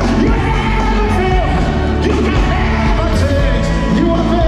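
Live worship music played loud over a PA: a band with a singer's voice carrying the melody over a heavy bass.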